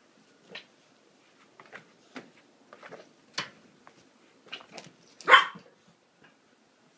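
Yorkshire terrier barking in a series of short, separate barks, the loudest a little past five seconds in.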